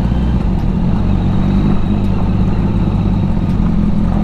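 Kawasaki Z900's inline-four engine running steadily on its stock exhaust, with no revving.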